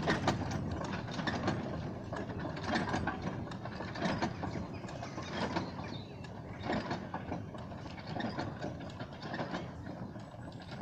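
Early-style steam locomotive moving slowly, its exposed rods and beams clanking and rattling, with a stroke roughly every second or so.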